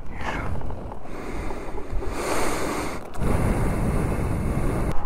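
Wind gusting and rustling against the microphone, in uneven swells with a heavier low rumble in the second half.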